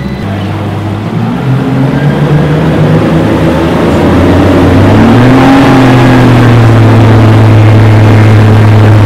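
Twin Suzuki 300 four-stroke outboard motors accelerating hard, their pitch rising in steps over the first five seconds as the throttle opens, then holding a steady high-speed drone, with the wake's water rush underneath.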